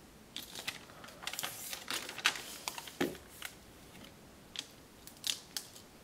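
Sheets of crinkled origami paper rustling and crackling as they are handled, in a run of irregular short, crisp crackles that die away near the end.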